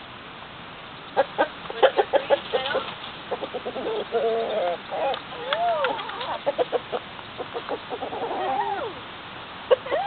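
Chickens clucking: a quick run of short clucks starts about a second in, with a few longer calls that rise and fall in pitch mixed among them.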